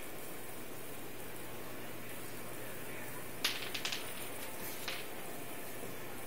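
A cluster of light, sharp clicks about halfway through, one louder and then three or four quick smaller ones, and a single click a second later, from a Yorkshire terrier puppy nosing at its food bowl and the dry kibble around it. A steady hiss sits underneath.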